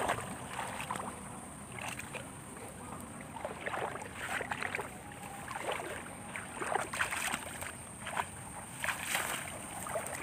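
Shallow muddy water splashing and sloshing in short, irregular bursts as hands grope through it.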